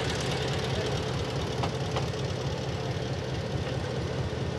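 Diesel locomotive No. 573, an EMD road-switcher, idling steadily with a low, even throb. A couple of faint clicks come about a second and a half in.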